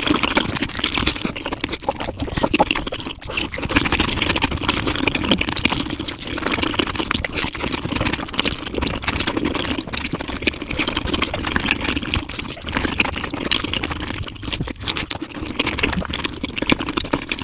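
Mukbang eating sounds played at five times normal speed: chewing and mouth noises run together into a dense, continuous stream of rapid clicks.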